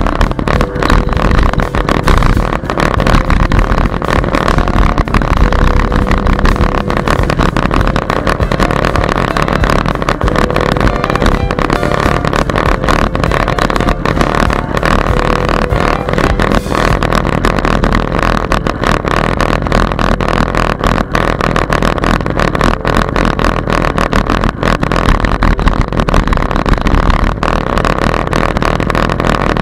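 Continuous ride noise picked up by a bicycle-mounted camera: wind rushing over the microphone, with frequent clicks and rattles from the camera and bike as it rolls along the paved path.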